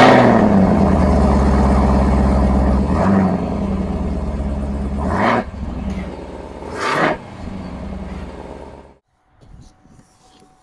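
A 2022 Chevrolet Camaro ZL1's 6.2-litre supercharged V8 starts through its quad-tip exhaust with a loud flare, then settles into a fast, steady idle. It is blipped sharply twice, about five and seven seconds in, drops back to a quieter idle, and the sound cuts off abruptly about nine seconds in.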